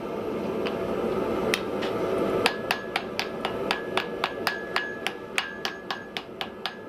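Hand hammer striking red-hot iron on an anvil, forging it: after a rising rushing noise with a few scattered blows, a steady run of strikes at about four to five a second begins about two and a half seconds in, many of them leaving a short ring from the anvil.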